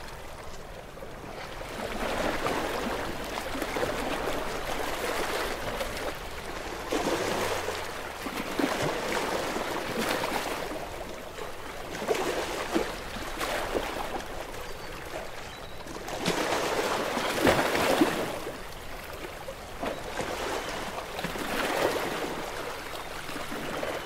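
Small ocean waves lapping and sloshing close by, swelling in irregular gentle surges every few seconds with light splashy gurgles; the biggest surge comes about two-thirds of the way through.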